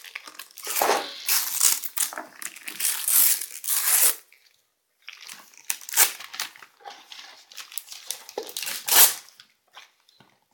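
Wrapping paper being torn and crumpled off a gift box in a series of rips and crinkles, with a short pause about four seconds in and sharp single rips after it.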